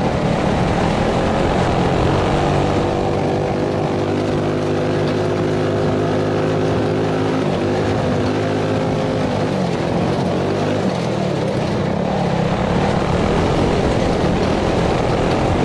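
Modified Tillotson 212 single-cylinder go-kart engine (Mod 2 cam, Mikuni carburetor, billet rod) running hard under load, heard loud and close from on board the kart. The revs hold steady for several seconds in the middle, with a brief dip, then rise and fall as the kart is driven along the trail.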